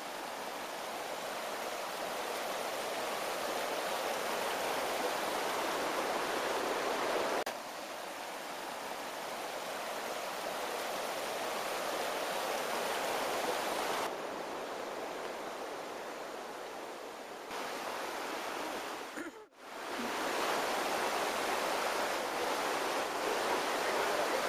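Steady rushing of flowing water from lake streams and small cascades. The sound changes abruptly a few times and drops out briefly about three quarters of the way through.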